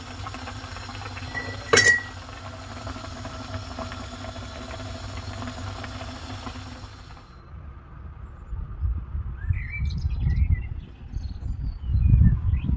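A steady hum with one sharp metallic clink about two seconds in. After a cut near seven seconds, small birds chirp in short calls over low rumbling on the microphone.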